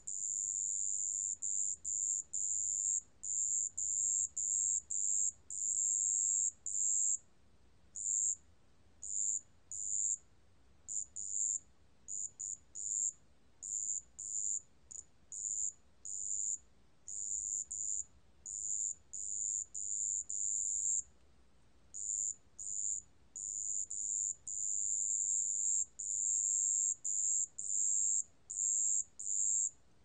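Wetland bell cricket (습지방울벌레) singing at 27 °C: a very high, pure-toned trill in runs from a fraction of a second to about a second and a half long, broken by short pauses.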